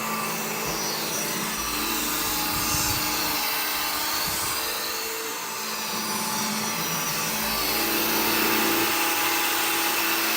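Bissell AirRam 22-volt cordless upright vacuum running over carpet: a steady motor whine and brushroll hiss that swells and eases gently as it is pushed along.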